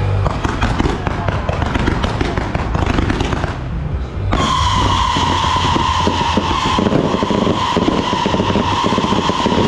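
Strings of firecrackers going off in a dense, continuous crackle. About four seconds in, a steady high whistle joins and holds, dropping slightly in pitch.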